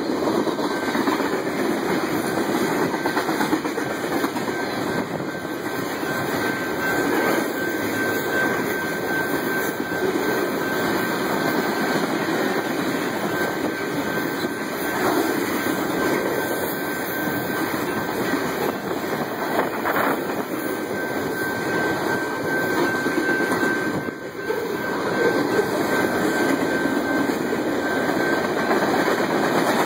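Union Pacific mixed freight train's cars rolling past close by at speed: a steady rumble and clatter of steel wheels over the rails. A thin, steady high tone runs through most of it.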